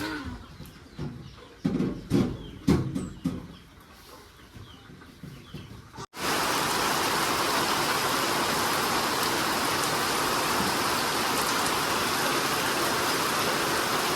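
A few short animal calls, like hens clucking, in the first half. Then, about six seconds in, an abrupt cut to a steady, even hiss like heavy rain or rushing water.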